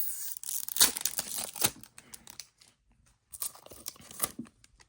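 A trading-card pack wrapper being torn open and crinkled by hand, in two spells of tearing and rustling with a short pause between.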